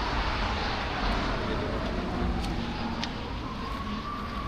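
City street traffic noise, with a faint whine that slides down in pitch and back up again.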